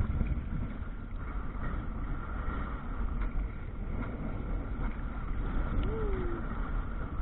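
Wind buffeting the microphone of a camera aboard a sailing canoe, over water rushing and lapping along the hull in choppy waves. A short falling squeak about six seconds in.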